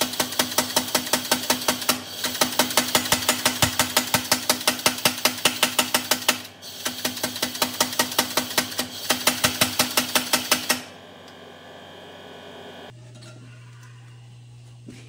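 Kinyon-style air power hammer striking a hot steel blade in rapid, even blows, about five a second, with short breaks about 2 and 6.5 seconds in. The hammering stops about 11 seconds in, leaving a steady low hum.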